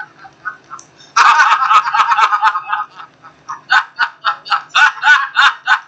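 Hearty laughter from a film soundtrack: a loud burst of laughing about a second in, then a quick run of short 'ha-ha' laughs.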